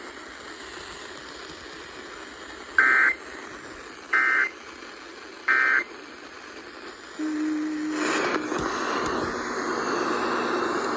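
Emergency Alert System end-of-message signal over radio hiss: three short bursts of warbling data tones, each about a third of a second long and about a second and a half apart. This marks the end of the broadcast severe thunderstorm warning. A short low steady tone follows, then a louder, fuller wash of station audio rises near the end.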